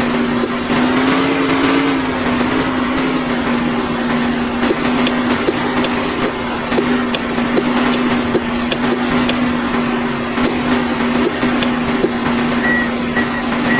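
A vehicle's motor running steadily with a humming whine that rises slightly for a moment about a second in, over a rattling mechanical noise. Short high-pitched beeps sound near the end.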